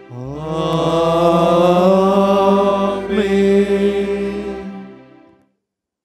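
Sung liturgical chant closing a Catholic prayer, the held notes sliding up at the start, then fading out about five seconds in.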